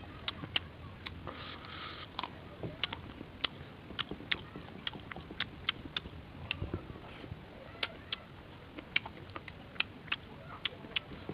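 A person chewing and eating, with many sharp, wet clicks coming irregularly, a few a second.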